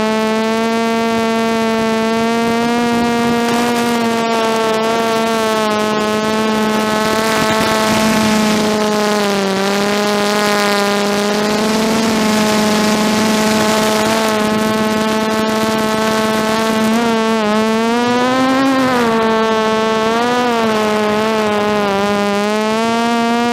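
DJI F330 quadcopter's electric motors and propellers humming steadily, picked up by the onboard GoPro. The pitch dips and rises as the throttle changes, wavering most in the last few seconds.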